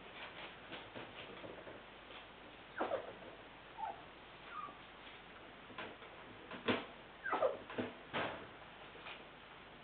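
West Highland White Terrier puppies giving short, high yips and squeaks that drop in pitch, a few around three seconds in and more in the second half, among light ticking clicks.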